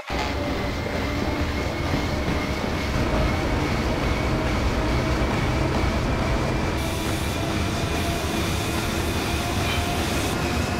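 Steady rumbling mechanical noise with faint steady tones riding on it, cutting in abruptly at the start and holding level throughout.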